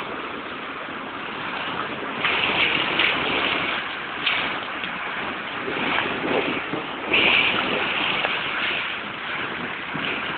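Rushing rainwater after a heavy downpour: a steady wash of noise that swells louder several times, about two, four, six and seven seconds in.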